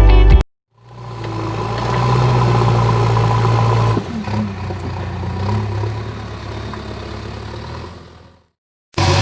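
JCB backhoe loader's diesel engine running steadily. It is heard in two edited stretches that fade in and out, with an abrupt cut about four seconds in.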